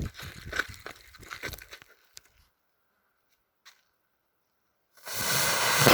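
Crackling for about two seconds, then near silence. About a second before the end comes a loud hissing zip that swells into the blast of a homemade M-80 with about 3 grams of flash powder.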